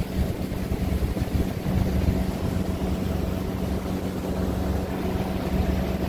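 Boat motor running steadily while the boat is underway, a constant hum over a low rumble, with water and wind rushing past.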